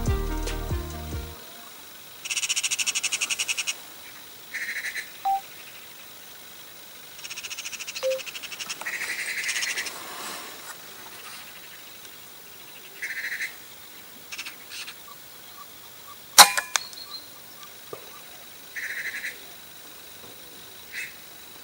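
Magpies chattering in short, harsh rattling bursts, several times. About 16 seconds in comes one sharp crack, the shot of a Weihrauch HW100T 4.5 mm PCP air rifle. Backing music fades out at the very start.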